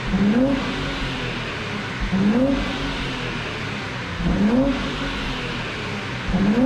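Nissan Skyline 400R's 3.0-litre twin-turbo V6 through a NISMO Sports titanium muffler, heard from close behind the tailpipes: the stationary engine is blipped from idle about every two seconds, each rev a short rise in pitch that falls straight back to idle, four times.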